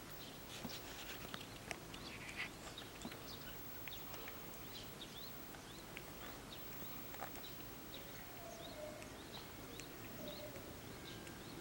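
Faint, repeated short chirps of small birds over a steady low background hiss, with a cluster of soft clicks in the first few seconds from a cat licking as it washes its face.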